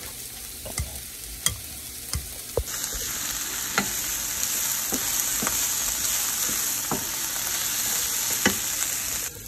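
A utensil knocks and scrapes as shredded cheese is mixed into mashed potatoes in a bowl. About three seconds in, this gives way to a steady sizzle of diced onion and green bell pepper frying in a nonstick pan, with occasional taps of the wooden spatula stirring them.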